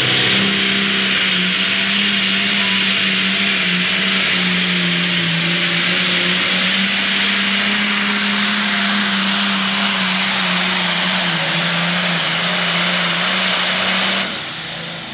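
Pro stock pulling tractor's single-turbocharged diesel engine running flat out under full load while pulling the sled, one loud steady note that holds nearly level. About fourteen seconds in it drops away sharply as the pull ends.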